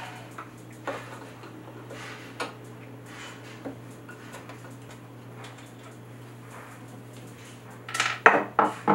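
Hard clicks and knocks from handling the Bakelite cabinet of a 1949 General Electric television: a few light taps, then a cluster of loud clunks near the end as the heavy front is worked loose.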